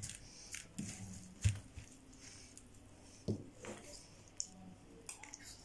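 Hands squeezing and turning a moist raw rice, tomato and herb stuffing on a ceramic platter: soft squishing with a few scattered light clicks and knocks.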